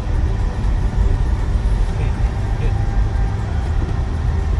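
Car driving, heard from inside the cabin: a steady low rumble of engine and tyre noise on the road.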